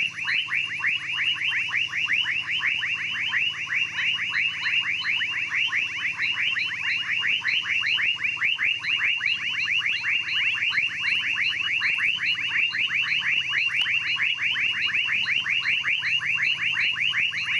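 Amazon rainforest night chorus: a continuous fast train of short falling whistles, several a second, keeping an even pace, with faint higher pips alongside.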